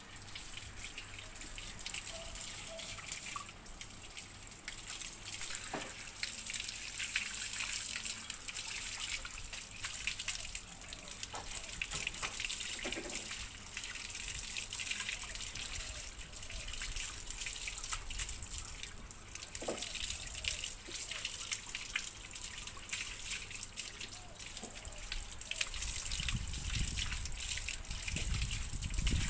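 Water running from a garden hose, spraying onto a golden retriever's wet coat and splashing onto concrete, with a steady hiss. A low rumble comes in near the end.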